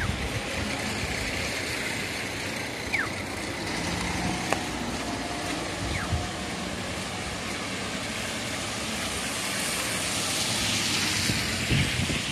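A vehicle passing on a wet road over a steady hiss of street noise, its tyre hiss swelling from about nine to twelve seconds in.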